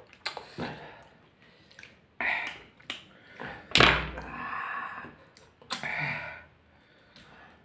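Close-miked eating of instant ramen noodles by hand: slurping and chewing with small clicks and lip smacks, and a heavy thump about four seconds in.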